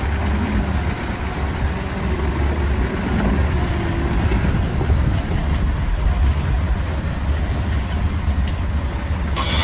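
Heavy diesel engine of a bulldozer running steadily with a deep rumble. Just before the end a high, scraping screech starts suddenly.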